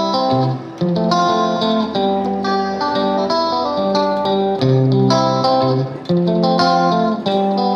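Background music: plucked guitar playing a melody over sustained bass notes.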